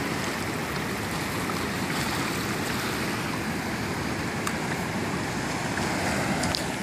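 Steady rush of shallow surf washing over the sand.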